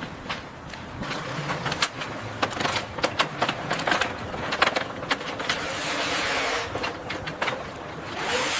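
Construction-site clatter: irregular sharp clicks and knocks over a steady hiss, with the hiss thickening in the second half and a short swelling whoosh near the end.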